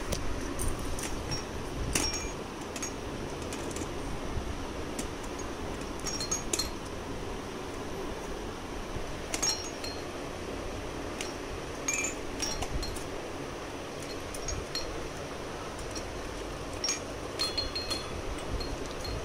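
Pink plastic roly-poly tumbler toy being rocked and bumped by a baby, the chime inside giving short, scattered tinkles every second or two.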